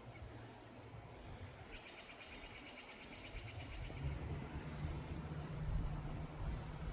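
Faint outdoor garden ambience: short high bird chirps three times, a fast rattling trill for about two seconds, and a low rumble that swells from about four seconds in.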